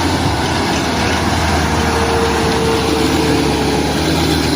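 Heavy truck engine running steadily with a constant low hum, and a faint held whine in the middle.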